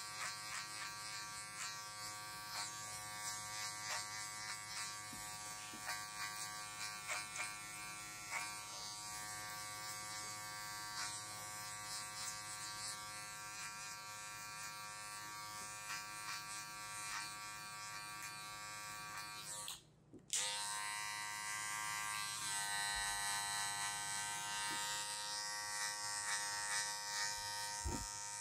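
Electric hair clippers buzzing steadily while cutting hair, with light ticks in the first several seconds. The motor cuts out briefly about two-thirds of the way through, then runs again at a slightly changed pitch.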